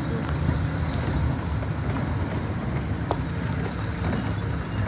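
Steady low rumble of a car driving slowly on a rough road, engine and road noise together, with a few faint clicks and rattles.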